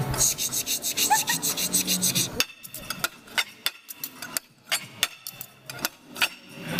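Steak knife rasped rapidly back and forth against a fork, a fast metal scraping for about two and a half seconds, then separate sharp metal clicks and taps as the knife and fork keep working.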